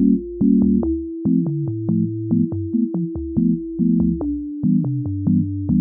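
Electronic background music with a steady ticking beat, a held synth note above, and short bass and chord notes moving beneath.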